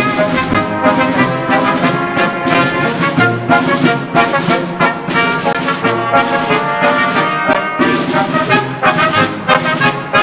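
Military brass band playing a tune: trombones and trumpets over a tuba bass line, with a drum keeping a steady beat.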